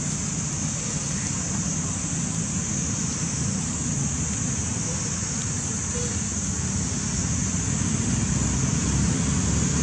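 Steady outdoor background noise: a low rumble with a constant high-pitched hiss over it, growing a little louder near the end. There are no clear monkey calls.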